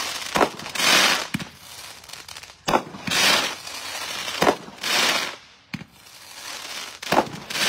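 Small 200-gram, 8-shot consumer firework cake firing in succession: sharp pops a second or so apart, with short bursts of crackling between them as the shells break.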